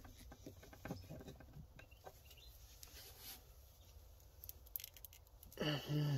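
Faint scattered clicks and rustling of a hand crimping tool and wires being handled while ring terminals are fitted, ending with a brief low hum or grunt from a man's voice.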